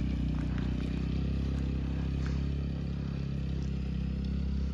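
Motor scooter engine running at a steady low hum, with a few light knocks over it.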